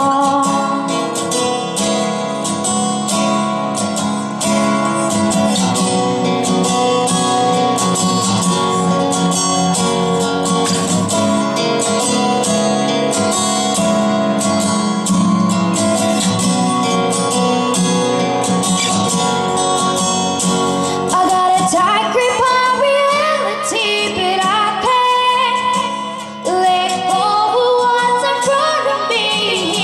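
Woman's voice singing without clear words over acoustic guitar accompaniment, a live cover of a pop ballad; from about two-thirds of the way in, the voice slides up and down in pitch.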